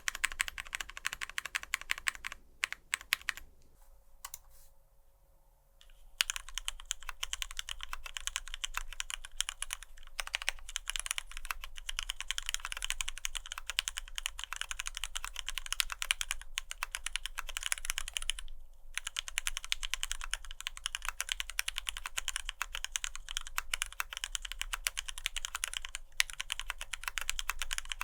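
Fast typing on a custom F1-8X gasket-mount mechanical keyboard: retooled Cherry MX Black linear switches lubed with Krytox 205g0, their stem shoulders left dry to keep the top-out clack, under ePBT dye-sublimated PBT keycaps on an aluminium plate. A quick run of keystrokes thins to a few scattered strokes and a short pause in the first six seconds, then dense steady typing carries on with one brief break past the middle.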